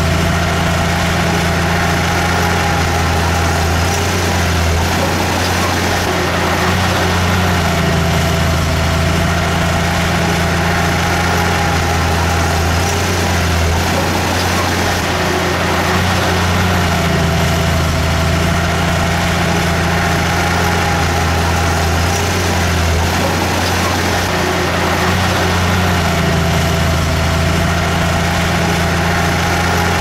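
Heavy diesel engine of a bulldozer running steadily and loud, its note sagging and recovering every several seconds.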